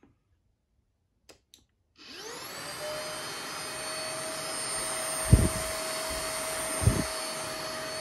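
MooSoo K17U cordless stick vacuum's brushless motor switched on about two seconds in, spinning up with a rising whine and then running at a steady whir with a high whine on top; it is super quiet. Two low knocks come through about halfway.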